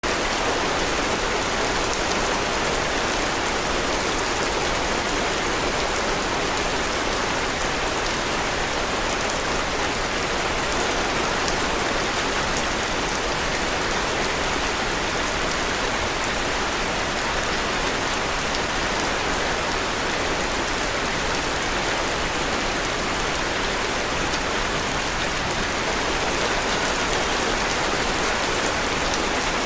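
Heavy rain falling steadily, a dense, even hiss of rain on surfaces.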